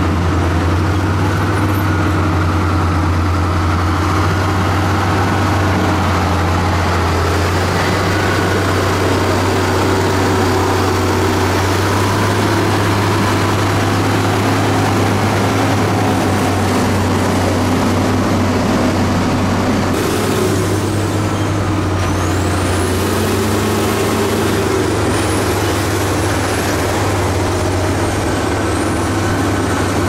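Heavy diesel construction machinery running steadily with a deep, constant drone. From about twenty seconds in, a faint high whistle rises and falls several times.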